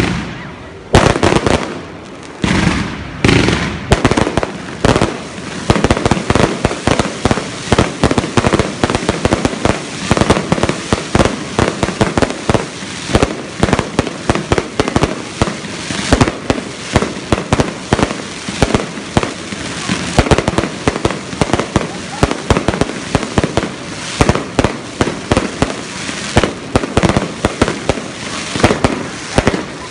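Aerial fireworks going off in a fast, unbroken barrage of bangs and crackles, many every second, with a few louder single bangs in the first few seconds.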